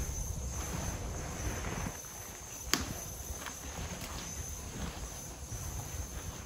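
Footsteps on a debris-strewn concrete factory floor, with one sharp click a little under three seconds in.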